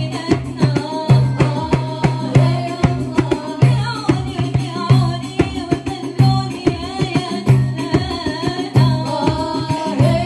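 A woman singing an Arabic nasheed with hand-drum accompaniment: a deep drum stroke about every second and a quarter, with lighter quick strikes between.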